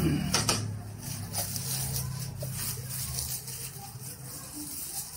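Plastic bag wrapping rustling and crinkling as a portable karaoke speaker is lifted from its box and unwrapped, with a few light clicks and knocks of handling.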